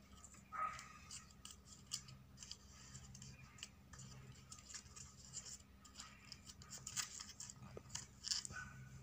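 Stiff paper petals of a handmade flower rustling and crackling quietly as fingers press and shape them: a scattered string of short, crisp crinkles.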